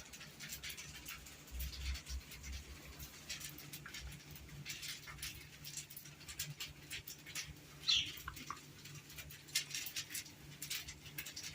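A husky moving about, with many faint scattered ticks and taps. About eight seconds in there is one short high squeak that falls in pitch.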